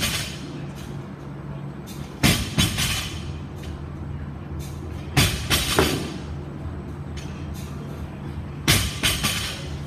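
Steel pull-up rig clanking under bar muscle-ups: a cluster of two or three sharp knocks about every three seconds as each rep hits the bar, over a steady low hum.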